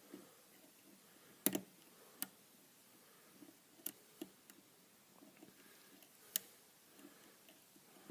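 Lock pick working the pins of a pin-tumbler challenge lock: a handful of sharp metallic clicks at irregular intervals, with faint scraping between them. The picker takes the crunchy feedback for serrated pins.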